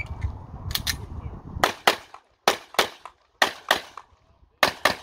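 Pistol shots fired in quick pairs (double taps), about ten in all, roughly one pair a second, as the shooter engages the stage's targets. A low rumble sits under the first pair.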